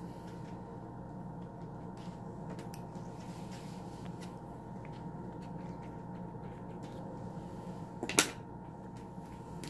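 Soft handling noises as a snake egg is picked out of a plastic egg tub, over a steady background hum, with one sharp knock about eight seconds in.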